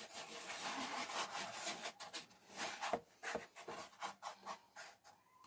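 Hands rubbing and patting a disc of semolina-coated harcha dough on a wooden platter to flatten and smooth it. A faint, gritty rubbing runs for about two seconds, then breaks into short separate strokes.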